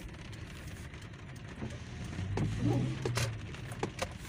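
Street traffic noise: a steady low engine hum, with faint voices and a few sharp clicks about three seconds in.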